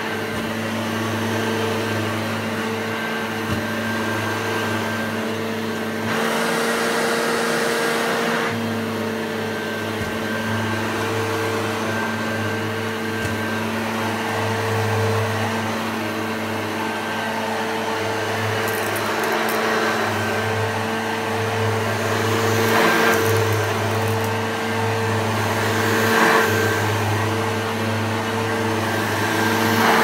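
Electric motor running steadily with a constant hum under a rushing noise, which swells briefly a few times.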